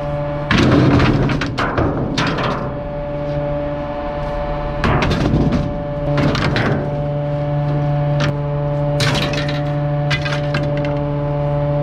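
Bulky waste cracking and breaking as a refuse truck's compactor crushes it, with many sharp snaps of splintering wood. Under it the truck's hydraulics hum steadily, cutting out and coming back a few times.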